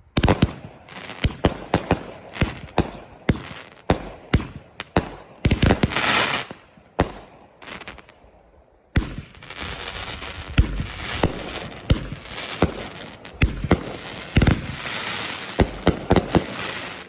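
A 200-gram consumer firework cake firing: a quick string of sharp launch thumps and bursts, with a dense crackling hiss about six seconds in and again from about nine seconds on, after a short lull near eight seconds.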